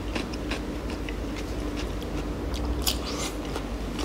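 Close-up chewing and biting of food: a run of short wet mouth clicks and crunches, with a sharper crunch about three seconds in.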